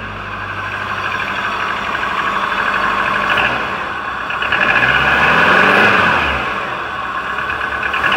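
Subaru 2.5-litre flat-four engine running on its first start after new head gaskets, still without coolant, with a light ticking that the owner takes for valve noise. About halfway through, the engine speed rises and falls once.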